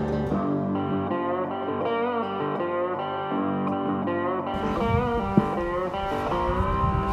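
Background music led by plucked guitar, with notes that slide in pitch. About halfway through, a low rumbling noise joins underneath.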